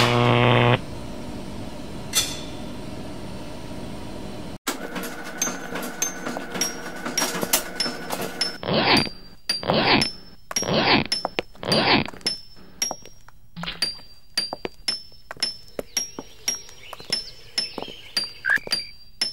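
Film soundtrack: a low droning tone that stops under a second in, then a quieter steady hum. After a brief break comes a run of evenly spaced clicks with high metallic pings, joined for a few seconds by loud whooshing swells.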